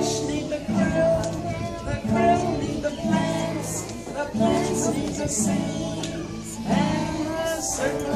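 Acoustic guitar strummed in a steady rhythm, accompanying a group of young children singing a song together.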